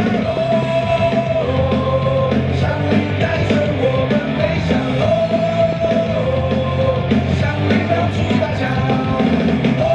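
Rock-style baseball player cheer song playing loudly over the stadium sound system, a repeating held melody over a steady drum and bass beat, with singing and yelled chants.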